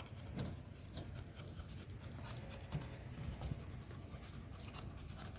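Faint scattered clicks and scratchy ticks from a dog moving about and taking a treat.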